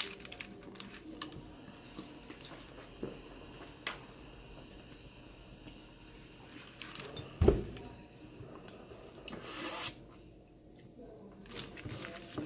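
Close-up eating and drinking sounds: wet chewing of a taco and sipping from a plastic water bottle. A single thump about seven and a half seconds in is the loudest sound, and a short rush of noise follows a couple of seconds later.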